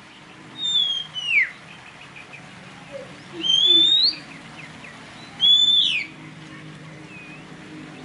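Oriental magpie-robin singing: four loud, clear whistled phrases about two seconds apart. The first glides down in pitch, the second rises, the third ends in a sharp drop, and a short soft note follows near the end.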